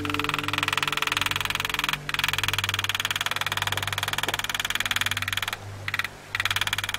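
Small hammer tapping a hand graver into steel plate in rapid, even strokes, with brief pauses about two seconds in and again near the end.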